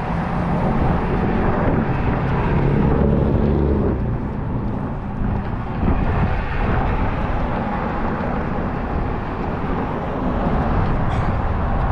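Strong wind buffeting the microphone while road traffic passes, with a vehicle's engine heard going by about two to four seconds in.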